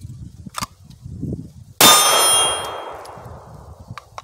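A single shot from a Smith & Wesson M&P9 M2.0 compact 9mm pistol, fired from a holster draw, comes a little under two seconds in. A steel target rings after it as the sound fades away over about two seconds.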